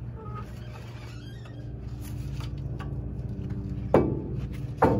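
Two sharp clanks with a short ring, a little under a second apart near the end, as the removed brake caliper is handled and hung on a bungee cord. A steady low hum runs underneath.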